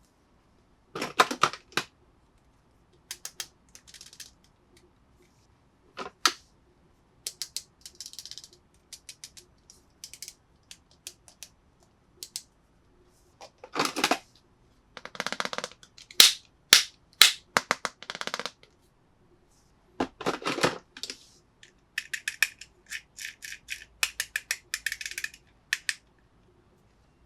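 Plastic toy pieces and packaging being handled: scattered sharp clicks and taps with short rustling bursts, and a quick run of small clicks about 22 to 25 seconds in.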